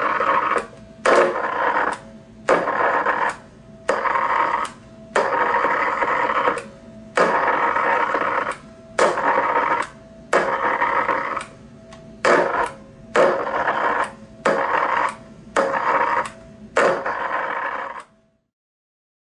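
A microwave oven transformer firing a spark plug submerged in a jar of water, switched on and off over and over: a harsh electrical buzz of arcing in about fourteen bursts of half a second to a second and a half, with short quieter gaps between them. It cuts off suddenly near the end.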